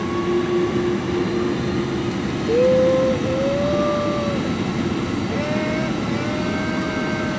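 Boeing 767-300ER jet engines heard from inside the cabin: a steady rush with a whine that twice rises in pitch and then holds, about two and a half and five and a half seconds in.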